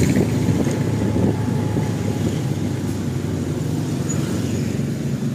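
A motor vehicle's engine running steadily, a low even sound with no sharp events.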